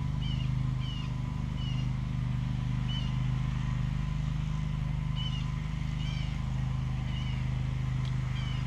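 A steady low mechanical hum, like a motor running, throughout. Over it come short, high chirps, likely a small bird calling, about eight times at irregular intervals.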